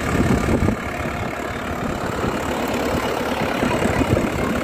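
Mahindra 595 DI Turbo tractor's diesel engine running steadily, a little louder in the first second.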